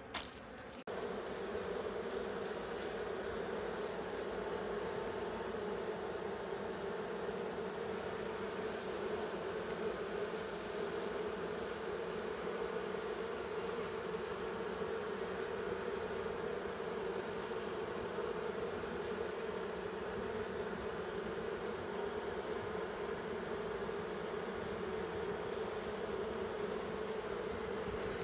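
A colony of honey bees buzzing steadily as its nest is opened and the comb is cut out of a hollow log. The buzzing gets louder about a second in and then holds even.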